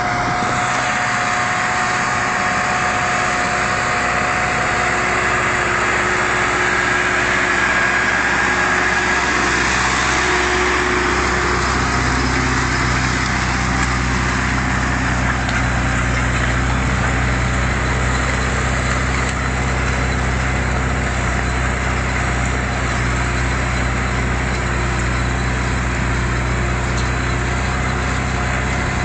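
Zetor 8441 tractor's diesel engine running steadily under load while pulling a single-furrow plough through the ground. Its low drone gets heavier about twelve seconds in.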